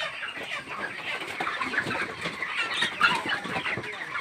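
A large flock of broiler chickens clucking and chattering all at once, many short calls overlapping.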